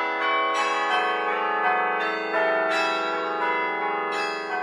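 Bell-like chimes: struck notes that ring on and overlap, with a new note roughly every half second.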